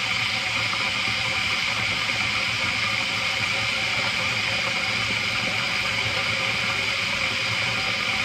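Electric kettle heating water toward the boil: a loud, steady hiss.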